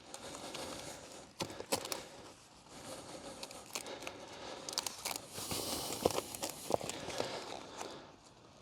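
Rustling and crinkling of silt sump bag material being handled and pressed into place, with scattered sharp clicks and knocks.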